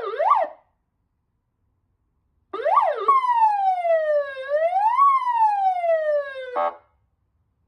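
Fire truck's electronic siren switching tones: a fast up-and-down yelp cuts off, and after about two seconds of silence a brief yelp gives way to a slow wail that falls, rises once and falls again, ending in a short blast.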